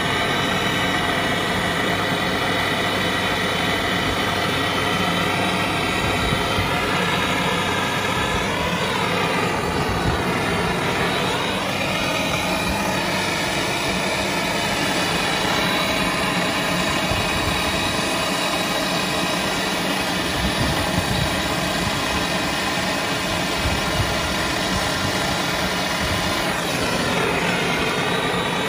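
A steady mechanical drone, like an engine or machine running: several pitched tones over a low rumble. The tones slide up and back down about a third of the way in and again near the end.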